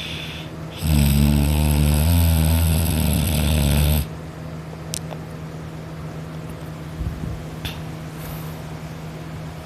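A sleeping person snoring: one loud, drawn-out snore of about three seconds that starts about a second in and stops abruptly. A steady low hum continues beneath it and afterwards.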